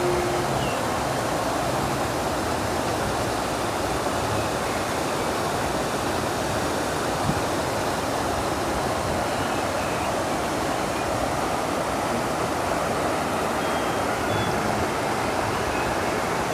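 Steady rushing of stream water spilling over a stone weir, an even, unbroken noise.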